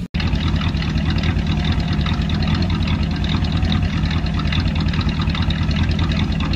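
Late-1960s four-door Ford Thunderbird's V8 engine running steadily at low revs, a low, even exhaust note close by.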